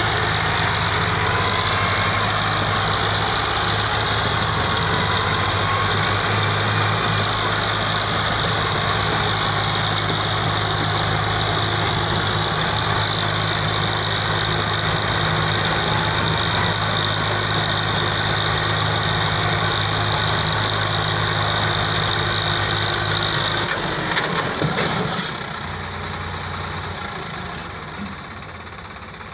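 Diesel engines of a Swaraj 855 and a Sonalika 35 tractor running hard under full load as they strain against each other in a tractor tug-of-war. Near the end the engine note breaks and falls, and the sound drops away.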